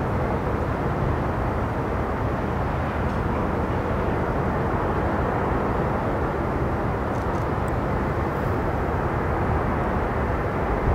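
Steady jet engine noise from an Airbus A321 rolling along the runway.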